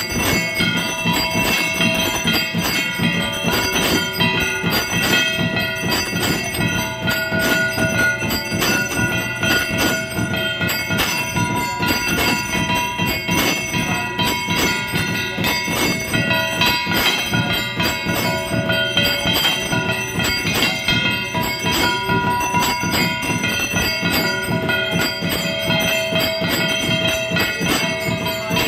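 Temple aarti bells ringing continuously with rapid, even strikes, several bell tones sounding together at a steady loudness.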